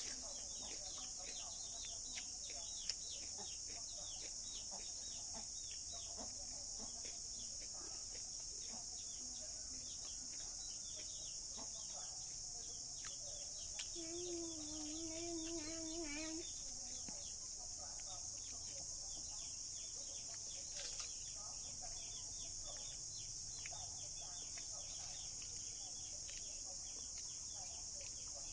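Rural outdoor ambience: a steady high insect drone under many short bird chirps, with one longer wavering call from a bird about halfway through.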